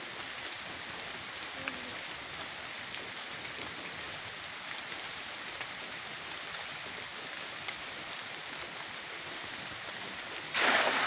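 Steady hiss of light drizzle over a small river, then near the end a cast net lands on the water with one brief, loud splash.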